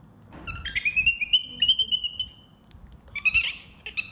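Baby macaque giving high-pitched squealing calls: one long call that rises and then holds for nearly two seconds, then a shorter one near the end.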